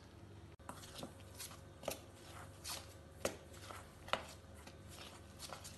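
Spoon stirring barley flour and a little water in a stainless steel bowl, faint irregular taps and scrapes of metal on metal, about one to two a second.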